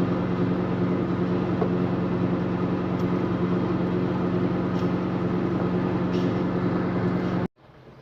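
Heavy diesel engine of a truck-mounted concrete pump running at a steady speed, cutting off suddenly near the end.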